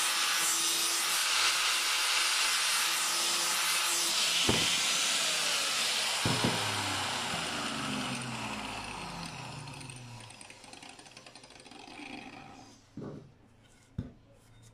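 Angle grinder with a flap disc sanding a pine block: a loud, even sanding noise for about four seconds. Then a click and a knock, and the grinder motor winds down with a falling whine over several seconds. Two sharp knocks near the end as the wooden block is handled.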